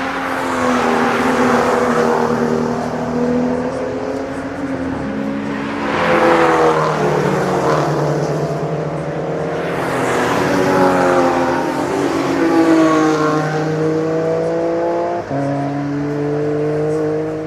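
GT race cars going past at speed one after another, each engine's note swelling and dropping in pitch as it passes, with an abrupt drop in pitch near the end, like an upshift.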